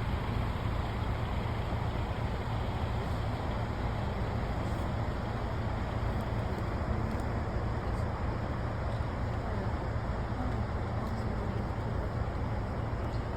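Steady low rumble of a motor vehicle on the move: engine and road noise running evenly, with no distinct events.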